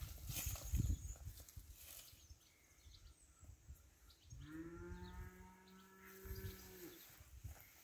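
A cow moos once, a single long, steady call of about two and a half seconds, starting a little past halfway. Near the start there is a short burst of rustles and low thumps.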